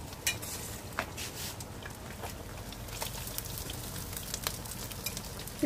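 Catfish pieces frying in a pan of oil: a steady sizzle with scattered small pops and crackles, the fish done and the heat just switched off.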